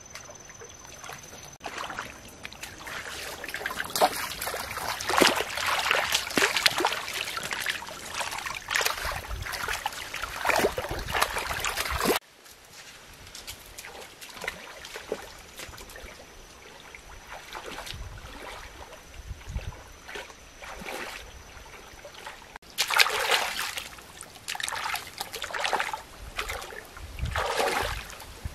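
Muddy water splashing and sloshing as a person wades and gropes by hand in a shallow pond, in irregular bursts, with a quieter stretch about halfway through.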